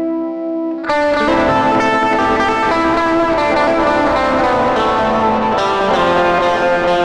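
Instrumental background music led by a guitar played through effects: a held chord rings, then a new passage of notes starts sharply about a second in.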